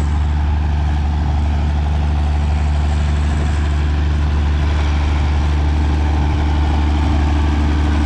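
Engine running steadily at a constant speed: a loud, low, even drone that does not change.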